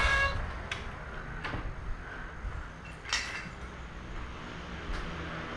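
A house door being opened, then a few scattered knocks and a louder clatter about three seconds in, as someone moves through the rooms.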